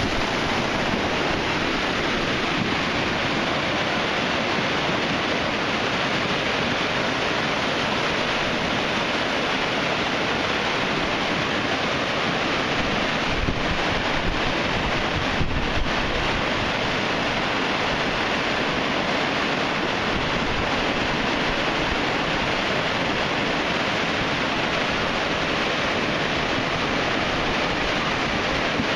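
A desert creek in flash flood: fast, muddy floodwater rushing and churning down a sandstone wash, a steady, unbroken rush of water.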